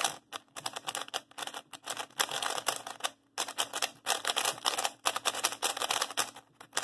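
A QiYi Sail W 3x3 speed cube being turned fast, its plastic layers clicking and clacking in quick runs with brief pauses. The cube is turning dry, with barely any lube in it, and feels sandy.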